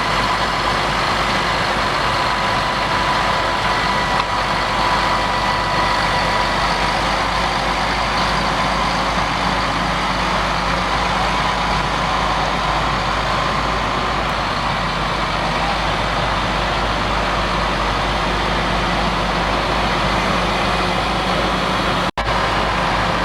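Massey Ferguson tractor engine running steadily while working in the field, with a faint high whine in the first few seconds.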